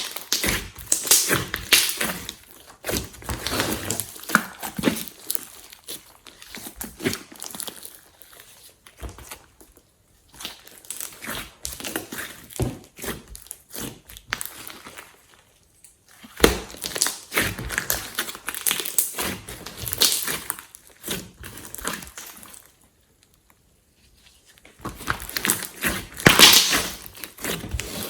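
Hands squishing, pressing and stretching glossy slime, making crackling, crinkly popping sounds in bouts of several seconds with brief pauses between them.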